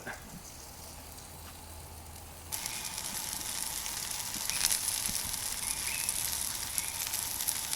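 Garfish fillet, floured skin side down, sizzling and crackling in hot oil on a barbecue hot plate, the sizzle starting abruptly about two and a half seconds in.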